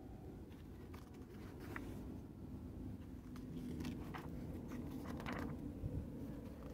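Glossy paper pages of a hardcover photobook being turned by hand: a series of brief, soft swishes and rustles, a few seconds apart, over a low steady background hum.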